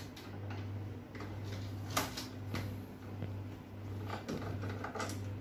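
A screwdriver working the screws on the plastic back panel of a laser printer: a few scattered clicks and handling knocks, the clearest about two seconds in, over a steady low hum.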